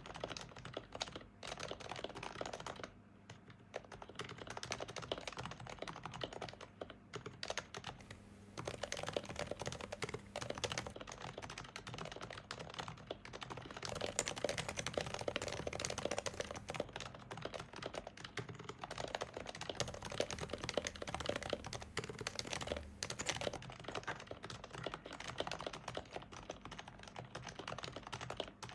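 Steady typing on an HHKB Pro 2 Type-S keyboard: Topre electro-capacitive rubber-dome switches with lubed sliders and silencing rings, giving a rapid run of soft, muted keystrokes with a couple of short pauses. About eight seconds in, the recording switches to a different microphone, and the keystrokes sound fuller and brighter from there on.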